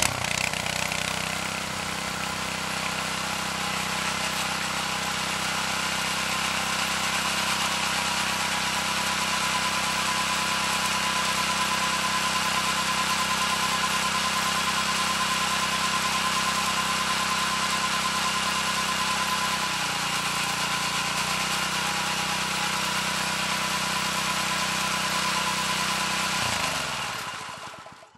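Lawn mower engine running steadily at a constant speed, then shut off near the end, its pitch falling as it winds down to a stop.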